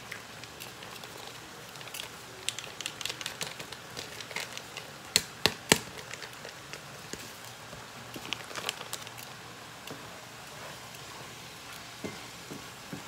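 Hot fat sizzling and crackling in a frying pan, with three sharp louder clicks about five to six seconds in.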